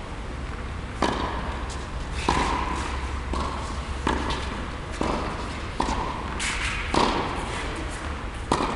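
Tennis balls being struck and bouncing: a sharp knock roughly once a second at an uneven pace, each one echoing in a large indoor tennis hall.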